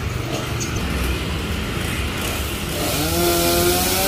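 Two-stroke chainsaw running, its revs climbing about three seconds in and then holding high.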